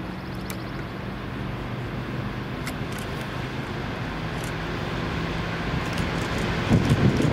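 Diesel locomotives of a passing freight train, a steady engine drone that slowly grows louder, swelling into a louder low rumble near the end.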